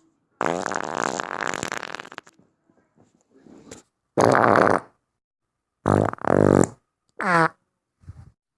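A string of separate farts with silent gaps between them: a long one of about two seconds that fades out, then a short loud one, two in quick succession, one that falls in pitch, and a faint short one near the end.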